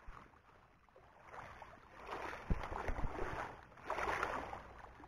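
Small waves washing against the rocky shore, coming in surges every second or two, with a couple of low thumps near the middle.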